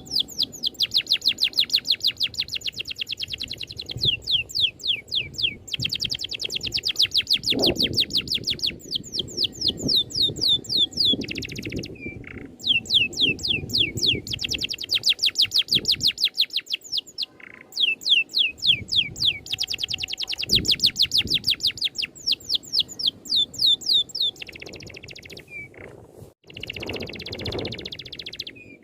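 Songbird singing a rapid rolling trill: fast, falling high notes at about ten a second, in runs of several seconds separated by short breaks.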